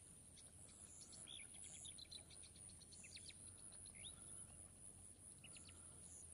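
Faint outdoor ambience of small birds chirping, with a quick run of short notes between about one and three seconds in, over a steady high insect buzz.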